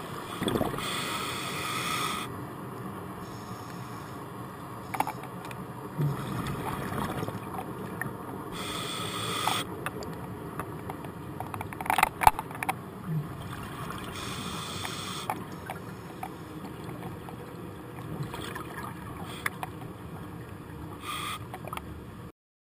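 Scuba regulator exhalations, a hissing rush of bubbles lasting about a second, repeating roughly every six seconds over a steady underwater rumble picked up through a camera housing. Scattered sharp clicks and knocks fall between the breaths, the loudest a pair about twelve seconds in. The sound cuts off suddenly near the end.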